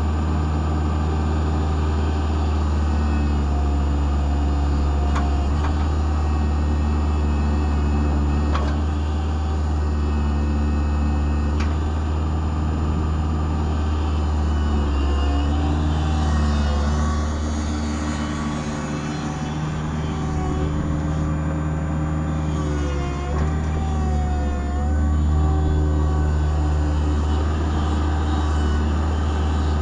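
The diesel engine of a 2006 Kubota KX121-3SS mini excavator running steadily with a deep, constant hum. In the second half, several whining tones waver and bend in pitch while the engine drops slightly in loudness for a few seconds.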